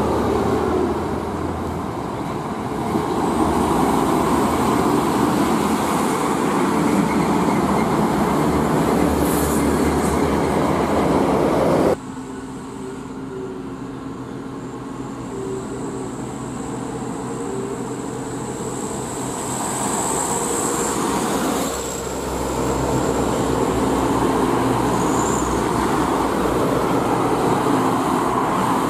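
Heavy diesel trucks running past on the road: first a Hino tanker truck, then, after an abrupt cut about twelve seconds in, a Mitsubishi Fuso Fighter FM cargo truck, over steady traffic noise.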